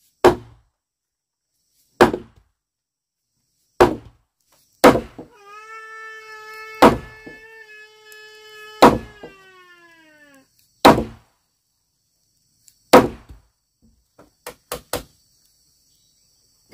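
A heavy wooden mallet pounding a timber beam into a joint of a wooden house frame: eight heavy blows about two seconds apart, then a few lighter knocks near the end. Through the middle blows a long, high, held call sounds for about five seconds and falls in pitch as it ends.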